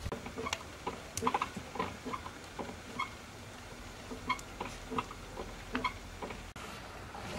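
A hand working flour and hot water into a wet dough in an aluminium basin: irregular wet squelches and sticky clicks, about two a second.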